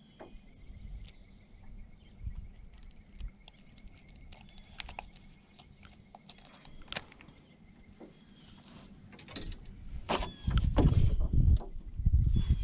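Scattered light clicks and knocks, with a faint steady high whine for the first half; about ten seconds in, louder low thumps and rumbling set in.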